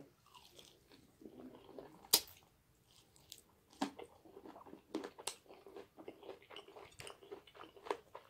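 A person chewing a bite of crispy fried chicken in cheese sauce close to the microphone, with wet chewing and lip smacks coming several times a second in the second half. One sharp crunch stands out about two seconds in.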